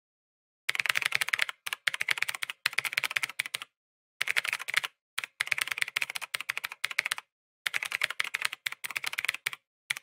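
Typing sound effect: rapid key clicks in runs of about a second each, with short pauses between runs, one run for each line of text being typed out.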